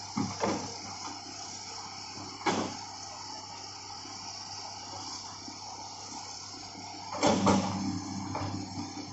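Hitachi hydraulic excavator's diesel engine running steadily while it digs soil, with loud knocks from the working machine: two just after the start, one about two and a half seconds in, and a longer cluster near the end.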